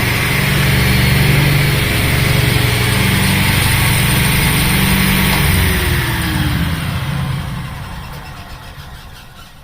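Jet cabinet table saw's 3-horsepower motor and blade running at full speed with a steady hum, then winding down from about six seconds in, falling in pitch and fading as the saw coasts to a stop.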